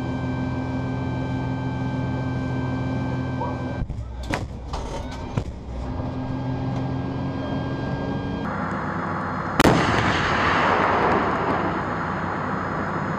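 Steady drone inside an M109 Paladin's crew compartment, broken by a few sharp clicks and knocks about four to five seconds in. About ten seconds in, one 155 mm howitzer shot: a sharp crack, the loudest sound, followed by a long rumble that dies away.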